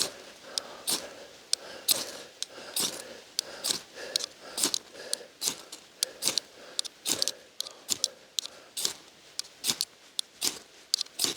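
Repeated quick, sharp scraping strikes, about two to three a second: a metal striker raked down a ferrocerium rod (Zippo Mag Strike) to throw sparks onto tinder that has not caught.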